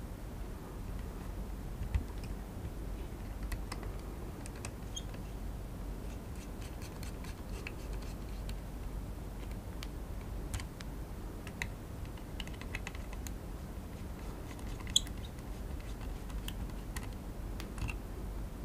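Small scattered clicks and ticks of a precision screwdriver and fingers working on the plastic housing of a DJI Mavic Air remote controller as small screws are driven back in, with two sharper clicks about 2 seconds in and about 15 seconds in.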